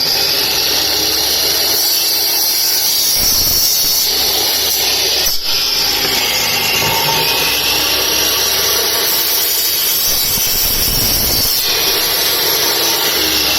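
A hand-held power cutter running steadily while it cuts off the mounting legs of a BLDC fan's magnet ring so that the magnet fits the old fan body.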